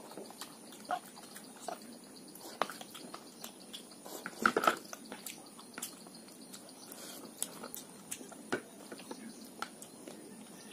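Close-up eating sounds: scattered light clicks of a spoon against a bowl, and chewing. A louder cluster of clicks comes about four and a half seconds in.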